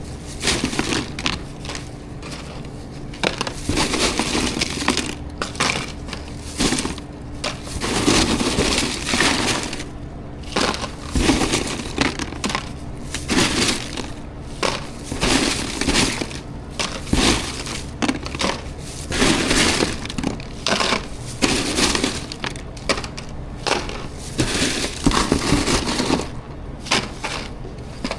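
Tortilla chips being handled: a chip bag crinkling and chips crunching in irregular bursts.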